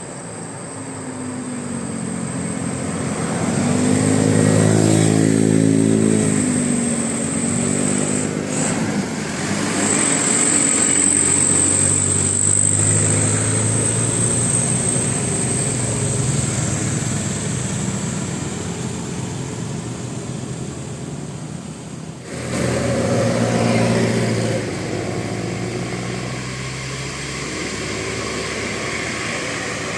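Road traffic: vehicle engines passing one after another, the engine note swelling and fading. The sound breaks off abruptly about two-thirds of the way in, and another vehicle passes straight after.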